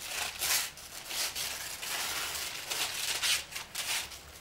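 Paper crinkling and tearing in irregular bursts as a wrapped present is unwrapped.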